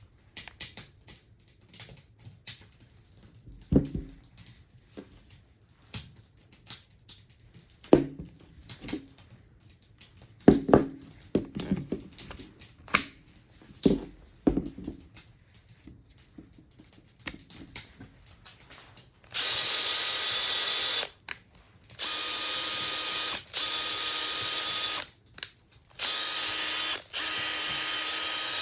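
Scattered clicks and knocks, then a Makita TP131D cordless 4-mode impact driver's motor running steadily in four short bursts of one to two seconds each, starting about two-thirds of the way in, with the trigger released between bursts.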